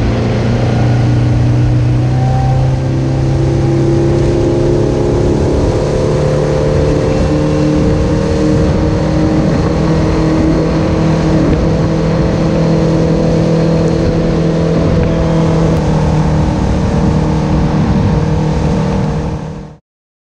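A boat's engine running hard under way, rising in pitch over the first few seconds as it speeds up, then holding steady; it cuts off suddenly near the end.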